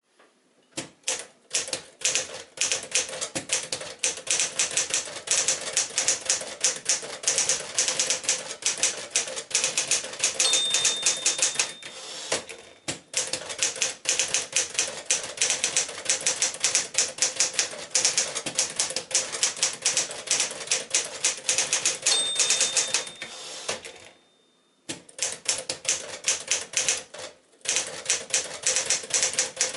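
A freshly set-up 1965 Smith-Corona Sterling manual typewriter being typed on steadily, with several key strikes a second. A single bell-like ring comes about ten seconds in and again a little past twenty seconds, the margin bell warning that the line is nearly full. Brief breaks in the typing follow each ring.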